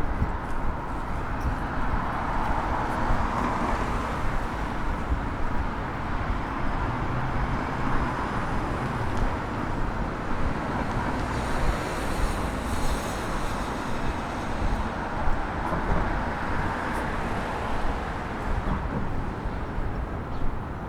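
Downtown city street traffic: a steady wash of cars and buses passing, with a brief high hiss about halfway through.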